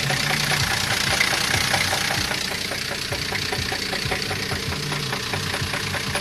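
Car engine idling with a rapid, regular knock from inside the block. The owners fear that running it further will spin the bearing shells.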